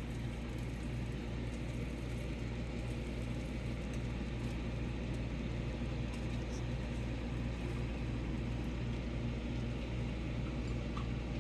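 Steady low hum and whir that does not change, with the chicken patty cooking in a covered pan under a pot lid while the cheese melts.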